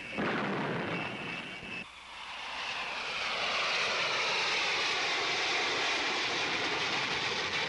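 Lockheed SR-71 jet engines at takeoff power: a jet roar with a steady high whine for about two seconds, a brief dip, then a roar that swells and holds with a slowly sweeping hiss as the aircraft lifts off and climbs.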